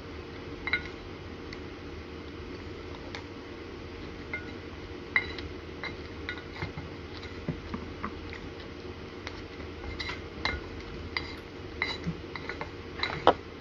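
A spoon clinking and scraping against a bowl as a toddler feeds himself: irregular small clicks and taps, the loudest a little before the end.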